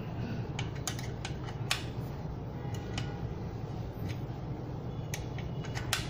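Scattered light clicks of a hex key working the mounting bolts of an e-bike disc brake caliper, the bolts being snugged only loosely so the caliper can still be shifted, over a steady low hum.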